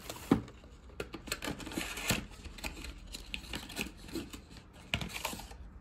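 Packaging from a mail-order parcel being handled: crinkling wrapping with a quick string of sharp clicks and taps, the loudest a sharp click just after the start.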